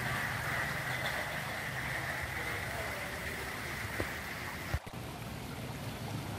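Steady outdoor background noise with a low hum and a high hiss. A sharp click comes about three-quarters of the way through, and the noise dips briefly after it.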